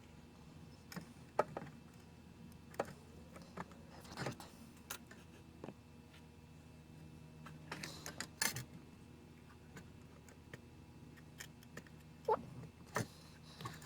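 Scattered small clicks and taps of metal hand tools working at a TV tuner's RF coaxial connector while its center pin is pulled out, with a faint steady hum underneath.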